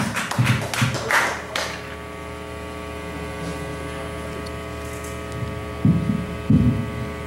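Steady electrical hum and buzz from the stage sound system, made of several even tones. A few sharp taps or claps sound in the first second and a half, and a couple of low thuds come about six seconds in.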